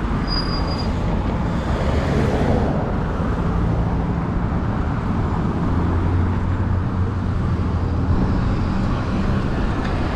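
Steady street traffic noise, with a motor vehicle's low engine hum that is strongest about six to eight seconds in.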